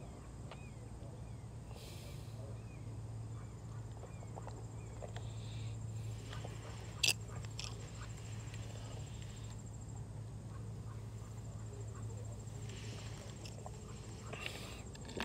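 A quiet, steady low hum with a few faint chirps, broken by one sharp click about halfway through. Near the end comes a short run of small clicks as the plastic cap is screwed back onto a Snapple bottle.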